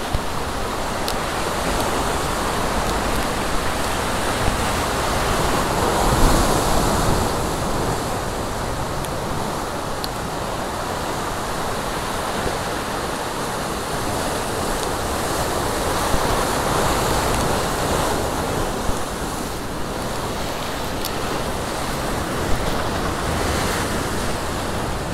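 Ocean surf breaking and washing over rocks, a steady rushing wash that swells louder about six seconds in and again around sixteen seconds.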